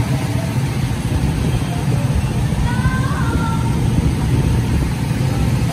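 Small petrol go-kart engines idling together, a steady low drone.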